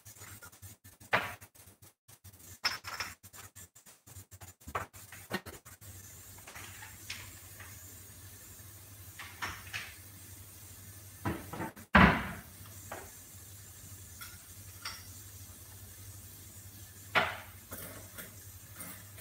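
Kitchen clatter of pots, lid and utensils clinking at the stove over a steady low hum. A kitchen cupboard shuts with a loud thump about twelve seconds in, and a sharp knock follows near the end.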